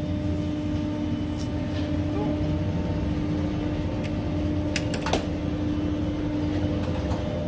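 Chairlift station machinery running with a steady hum, with a few sharp clicks and a clank about five seconds in as the chair moves off.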